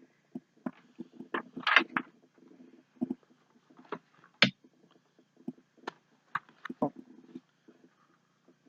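Items and packaging from a subscription box being handled: irregular taps, clicks and short rustles, with a longer rustling scrape a little under two seconds in and a sharp tap about four and a half seconds in.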